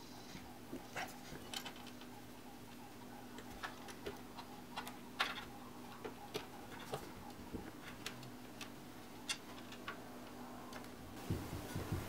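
Irregular small clicks and taps of screws and a hand tool as a water-cooling pump bracket is screwed onto a radiator fan, over a faint steady hum. The sharpest tap comes about five seconds in.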